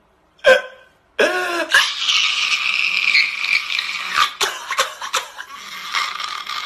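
A man crying: a short gasping sob, then from about a second in a long, high, strained wail.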